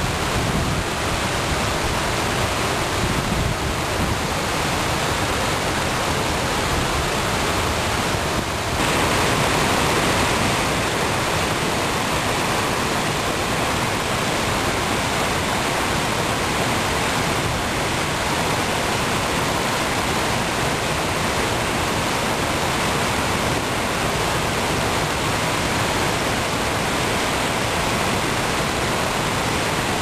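Water from an artificial cascade fountain falling down a stepped stone wall into a shallow pool: a steady rushing splash that grows a little louder and brighter about nine seconds in.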